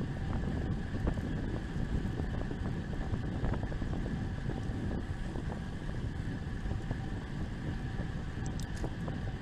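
Steady wind rush buffeting the microphone of a camera on a moving road bicycle, over a low, even rumble.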